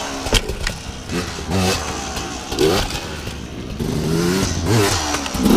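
Enduro dirt bike engine revving up and down in a series of short rises and falls, as when ridden over rough off-road ground. A sharp knock comes about a third of a second in.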